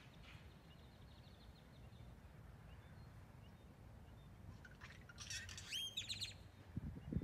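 A songbird sings a short burst of quick, sweeping chirps about five seconds in, after a faint high trill near the start. Under it runs a low rumble, and a short low thump comes at the very end.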